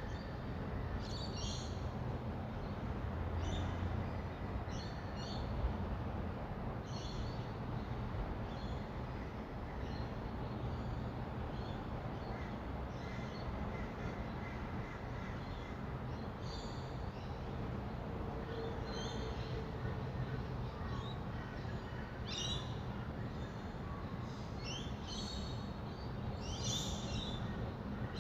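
Rainbow lorikeets giving short, high screeching calls, scattered at first and coming thicker near the end, over the steady low rumble of distant city traffic.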